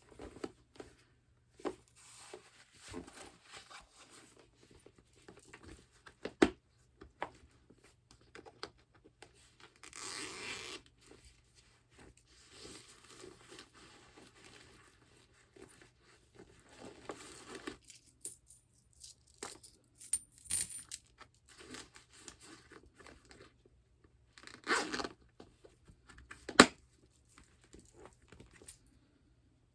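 Vintage patent leather (vinyl/plastic) handbags being handled, with irregular sticky crackling and peeling of the glossy surface. There are a few longer rustling stretches and several sharp clicks, the loudest near the end.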